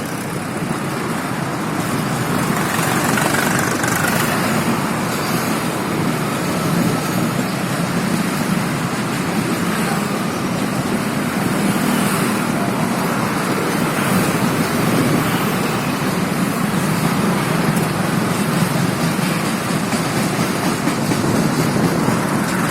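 Steady rolling rumble and rattle of a loaded container freight train running on the track, heard from the guard's brake van.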